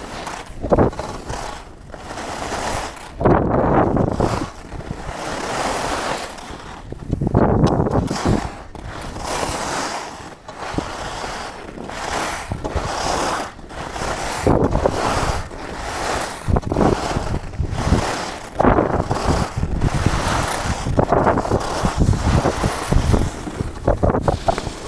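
Skis carving and scraping on packed snow, with a surge of hissing scrape at each turn about every two seconds, and wind on the microphone.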